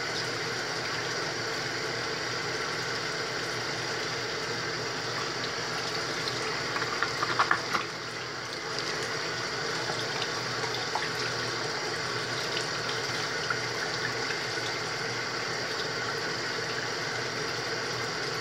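Bathroom faucet running steadily into a sink while a makeup brush is rinsed under the stream. A short clatter of knocks and clicks comes about seven seconds in.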